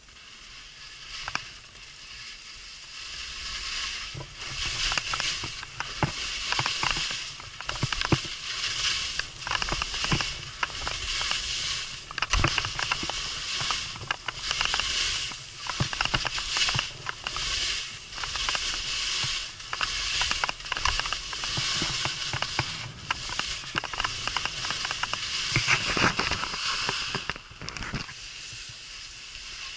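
Skis scraping and carving over firm, wind-packed snow: a hiss that swells with each turn about every second and a half, with sharp clicks and knocks of edges chattering on the hard surface. It dies down near the end as the skier stops.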